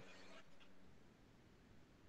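Near silence: a faint hiss dies away within the first half second.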